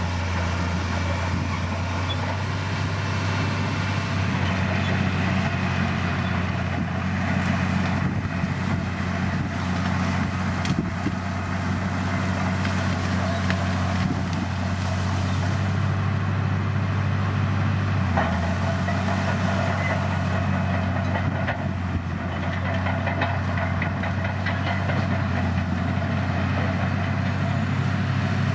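Heavy diesel engine of earthmoving machinery running steadily with a deep, even hum.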